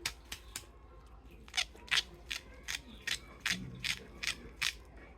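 Sharp plastic clicks and snaps from hands handling toys: an uneven run of about a dozen, roughly two to three a second, some louder than others.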